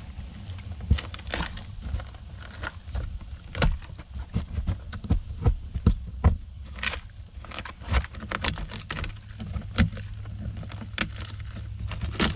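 Rotted wood core of a fiberglass boat transom being picked at and pulled apart by hand: irregular crackles, snaps and scrapes of the decayed wood breaking away, over a low steady rumble.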